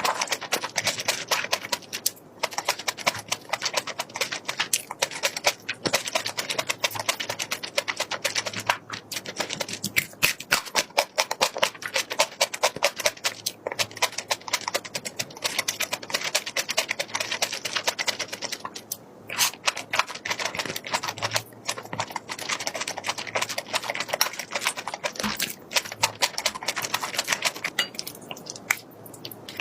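Close-up eating sounds: a dense, irregular run of crisp clicks and crunches from chewing food, with a few short pauses.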